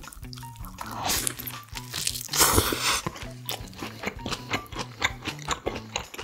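Mouth biting into a toasted ham-and-egg sandwich: a crunch of toasted bread about a second in and a longer, louder crunch around two and a half seconds, then chewing. Soft background music plays underneath.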